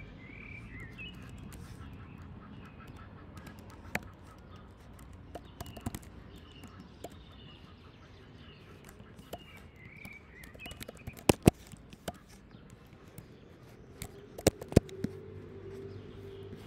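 Birds calling in the background with short chirps, over scattered sharp clicks. The loudest clicks come as a pair about eleven seconds in and another pair near the end, when a low steady hum comes in.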